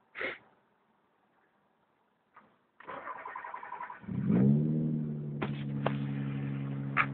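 A 1993 Mazda MX-6's V6, with its catalytic converter removed and a cheap aftermarket muffler, being started: the starter cranks for about a second, the engine catches with a quick rev and settles into a steady idle.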